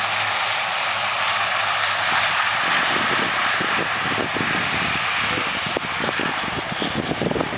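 Airbus A400M's four Europrop TP400 turboprop engines running at take-off power, a loud steady propeller and turbine noise as the aircraft lifts off the runway. From about two and a half seconds in, irregular low buffeting thumps run under it.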